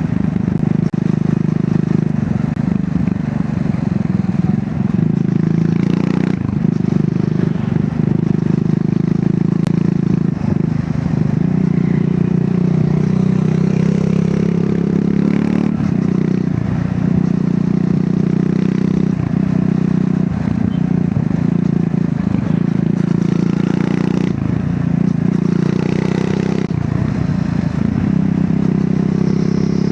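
Triumph Scrambler 400 X's single-cylinder engine through its stock exhaust, pulling steadily under way, with the engine note dipping briefly several times.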